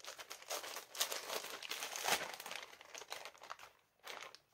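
Pink plastic mailer bag crinkling and rustling in the hands as it is handled and opened, in irregular bursts.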